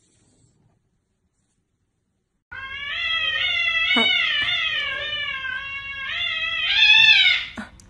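A cat yowling at another cat in a standoff: after near silence, one long drawn-out cry of about five seconds begins about two and a half seconds in, its pitch wavering up and down.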